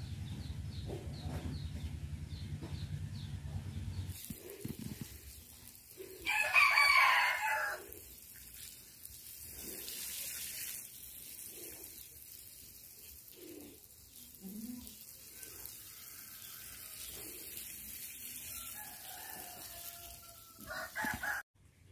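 A rooster crows loudly once, about six seconds in, with fainter clucks from chickens later on. From about four seconds in, a steady hiss of water spraying from a hose nozzle onto soil runs under it, after a low hum at the start.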